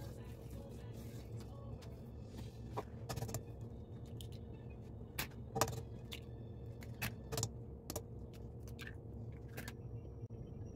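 Eggs being cracked into a stainless steel saucepan: a series of sharp taps and clicks as the shells are knocked and broken open, several in close pairs, over a steady low hum.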